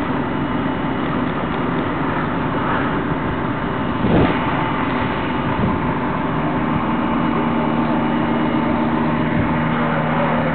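Fire engines' diesel engines running at a working fire, a steady, loud mechanical noise. There is a brief thump about four seconds in, and a steadier engine hum sets in at about six seconds.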